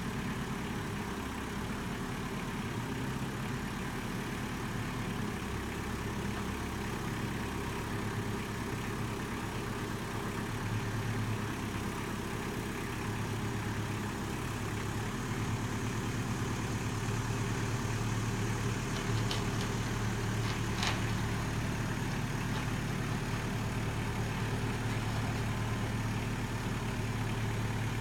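Kubota M59 backhoe's diesel engine running steadily, growing a little louder partway through. A few short clicks come about twenty seconds in.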